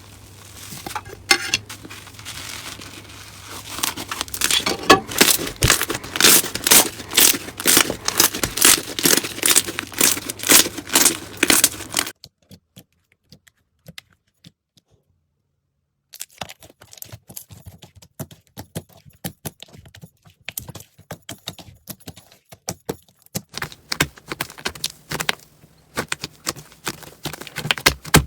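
Slime being squeezed and pressed by hand, making dense crackling and popping, with strong squishes about twice a second. After a pause of about four seconds near the middle, fainter, sparser crackles follow.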